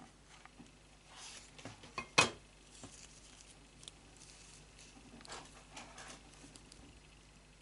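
Soft handling sounds of crocheted yarn leaves being pressed and turned around a glue-coated wire stem, with small scattered rustles and one sharp knock about two seconds in.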